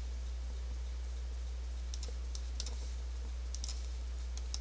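About six scattered, sharp clicks of a computer mouse and keyboard, mostly in the second half, over a steady low hum.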